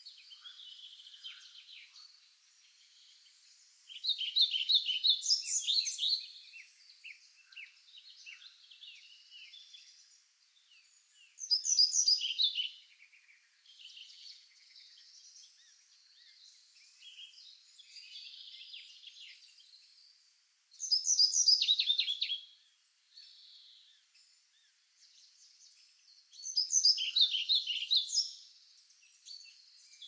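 Wild songbirds singing: a loud song phrase of quick notes that fall in pitch comes four times, several seconds apart, with fainter chirping of other birds in between.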